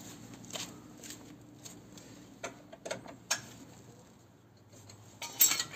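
Irregular metallic clicks and clinks of a T-bar socket wrench working the rear axle nut of an electric scooter, with a louder clatter of metal near the end.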